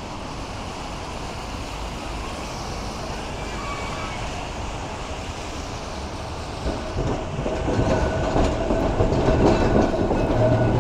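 Blackpool heritage Balloon double-deck tram running along the street track, growing louder as it approaches and passes, its wheels clacking over the rail joints with a steady whine in the last few seconds.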